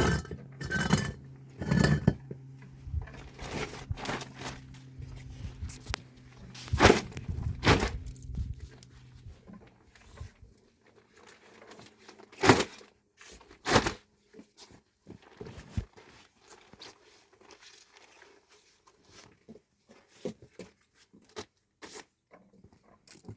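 Scattered knocks, clicks and rustling of things being handled. A steady low hum runs under the first ten seconds or so and then stops.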